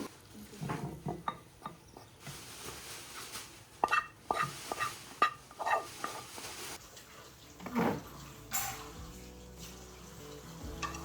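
Food sizzling in a pan while a metal utensil stirs it, with a run of sharp ringing clinks of metal against the pan in the middle. Soft music comes in near the end.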